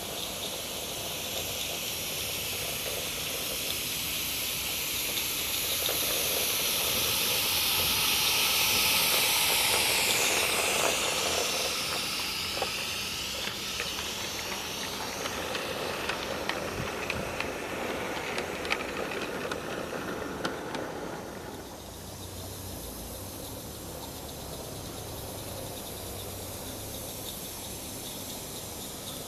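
Live-steam Roundhouse Fowler garden-railway locomotive, with no chuffer fitted, running past with a continuous steam hiss that swells as it passes about ten seconds in. Its freight wagons follow with a run of sharp clicks from the wheels on the track. The sound then drops suddenly to a quieter, steady hiss from the loco further away.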